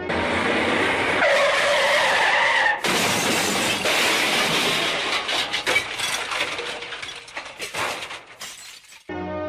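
Vehicle crash sound effect: a tyre skid squeal, then a loud crash about three seconds in, with glass shattering and debris clattering down, thinning out over several seconds.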